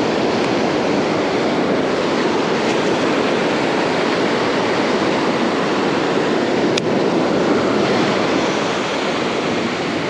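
Ocean surf breaking and washing up the beach, a steady loud rush of water, with one sharp click about seven seconds in.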